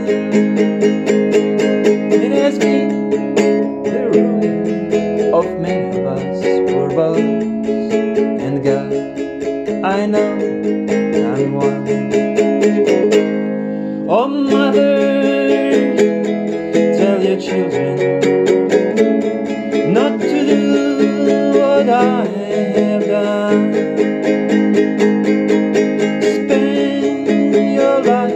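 Plucked guitar playing an instrumental passage of quick melodic notes, with some bent or sliding notes. The playing thins out briefly about halfway through.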